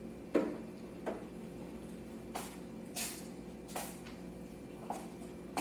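Quiet room with a steady low electrical hum, broken by about seven soft, brief noises scattered roughly a second apart.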